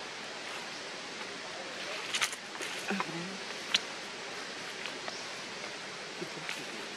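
Steady forest background hiss, broken by a few sharp clicks or snaps between about two and four seconds in, with a short low sound near three seconds.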